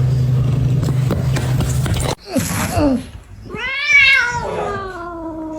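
A cat meowing: a short falling call, then one long drawn-out meow that rises and slowly falls in pitch. Before the meows a steady low hum cuts off suddenly about two seconds in.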